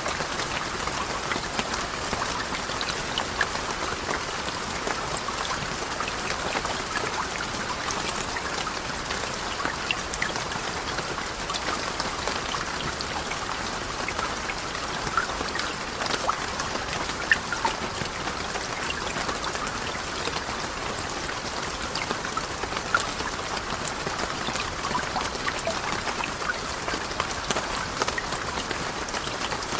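Steady rain: an even hiss with many small drop ticks scattered through it, unchanging throughout.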